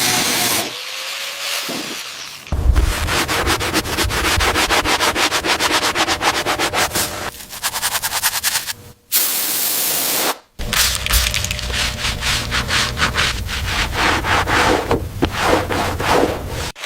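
Fast, rhythmic rubbing or scrubbing strokes against a surface, in several spliced clips, with a steady hiss for about a second in the middle.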